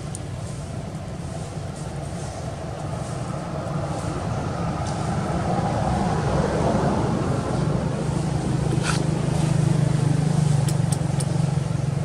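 A motor vehicle's engine running, a steady low hum that grows louder over several seconds and then holds steady, with a few faint sharp clicks near the end.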